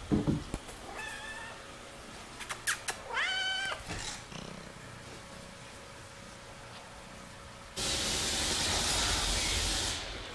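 A kitten meowing twice: a short meow about a second in, then a longer one that rises in pitch and holds. A few light clicks come just before the second meow, and near the end there are about two seconds of steady hissing noise.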